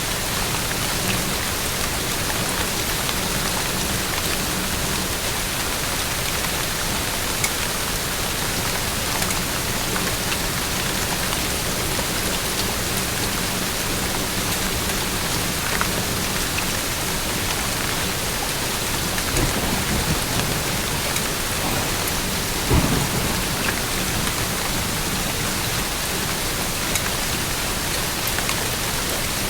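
Steady rain falling as an even hiss with scattered drop ticks. A brief low rumble comes about two-thirds of the way through.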